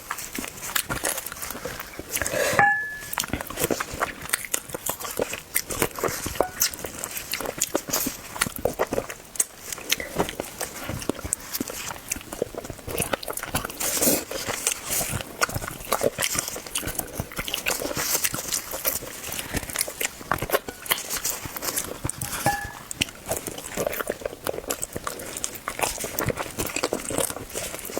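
A person biting and chewing crunchy food: a dense, uneven run of crunches and crackles.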